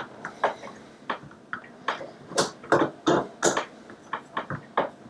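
Metal clamp-on pegboard and its clamp feet clicking and knocking as they are handled and slid onto the edge of a desk: about a dozen irregular sharp clacks.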